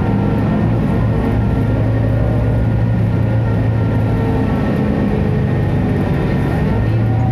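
Doosan GL11K 11.1-litre inline-six CNG engine of a Zhongtong LCK6180GC articulated bus idling steadily: an even, low hum that holds one pitch throughout.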